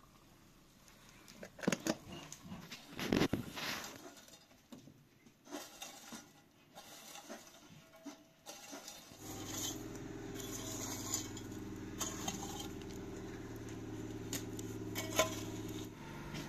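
Embers in an oven being poked and raked with a rod: scattered scrapes, clinks and crackles. About nine seconds in, a steady low hum sets in.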